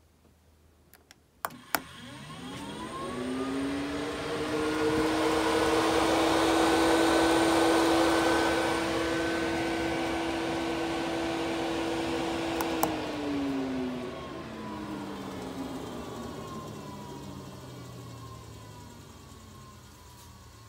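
12-volt RV bathroom exhaust fan switched on with a click, its motor whine rising in pitch as it spins up, then running steadily with a rush of air. After a second click it is switched off, and the hum falls in pitch as the fan winds down.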